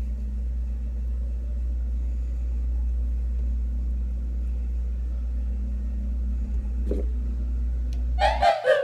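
Steady low rumble, cut off abruptly near the end as background music starts.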